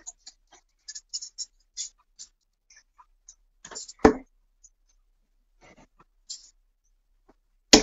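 Steel-tip darts striking a bristle dartboard: one solid thud about four seconds in and a sharper, brighter hit near the end, with faint small clicks and rustles between.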